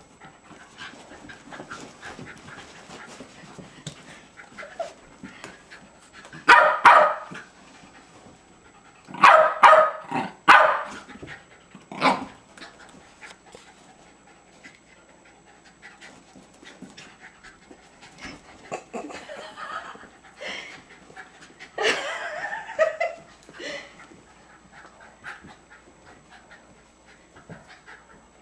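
Jack Russell terriers panting during play, with a few short bursts of loud barking.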